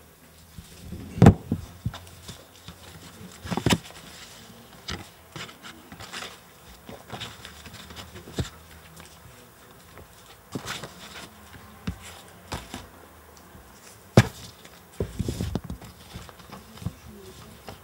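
Paper pages rustling and being shuffled close to a handheld microphone, with scattered handling knocks and bumps; the sharpest bumps come about a second in and again near fourteen seconds.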